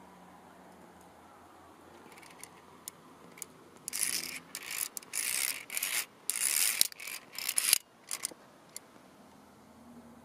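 Via ferrata carabiner scraping and grating along the steel safety cable in a run of rasping bursts lasting about four seconds, with a few metallic clicks before and after.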